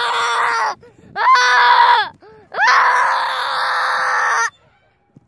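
A child's voice giving three long, high, loud held cries, the last the longest, breaking off sharply near the end.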